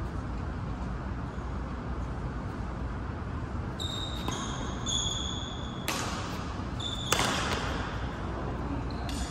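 Badminton rally: court shoes squeaking on the mat from about four seconds in, and two sharp racket strikes on the shuttlecock about a second apart, the second the louder, over steady low room noise.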